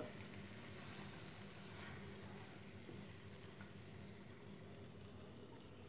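Faint, steady sizzle of oil and curry gravy in a hot non-stick kadai, the burner already off, as fish pieces are turned with a wooden spatula; a short knock right at the start.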